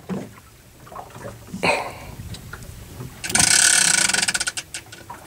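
A fishing reel's drag ratcheting out in a fast run of clicks as line is pulled off, starting about three seconds in and slowing just before it stops.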